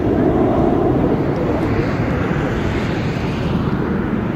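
McDonnell Douglas MD-11 trijet's engines at climb power just after takeoff: a steady, broad jet roar as the aircraft climbs away.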